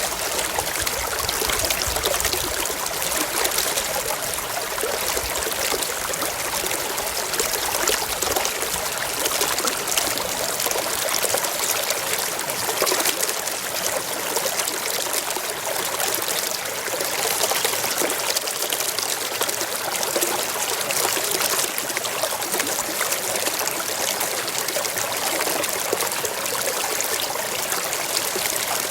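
Mountain stream flowing over rocks: a steady, even rush and trickle of water.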